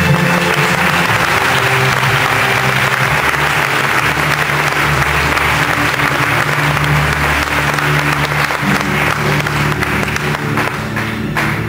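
Audience applause over continuing music: a dense clapping starts at once and fades away near the end, while the music's low sustained tones carry on underneath.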